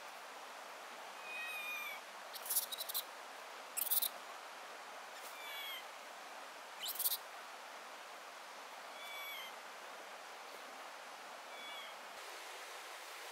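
A bird giving a short, slightly falling chirp about every three to four seconds over a steady outdoor hiss. Three brief, harsh, very high scratchy bursts stand out as the loudest sounds, at about two and a half, four and seven seconds in.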